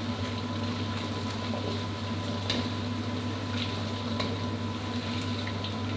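Chicken wings deep-frying in hot oil in a wok, bubbling and sizzling steadily over a low hum, about five minutes into frying. A few light clicks come as a wire skimmer stirs the pieces.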